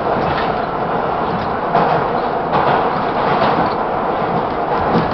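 R-40M/R-42 subway train running through a tunnel: steady wheel-on-rail noise with a few sharp clacks over the rail joints.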